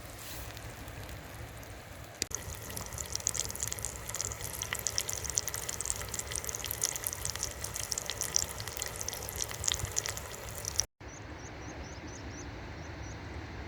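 Bacon and eggs frying in a stainless steel mess tin over a small wood-burning stove: a steady sizzle with dense, rapid spitting crackles. The sound cuts off abruptly about 11 seconds in and is replaced by a steady outdoor hiss with a few faint high chirps.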